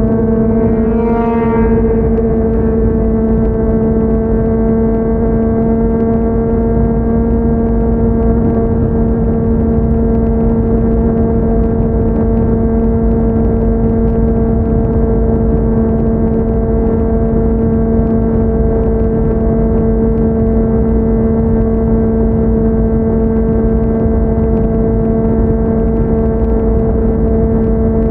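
Yamaha MT-09 three-cylinder engine with a Yoshimura R55 slip-on exhaust, running at a steady cruise. It gives a loud, even note that holds one pitch, with a brief rise in pitch about a second in.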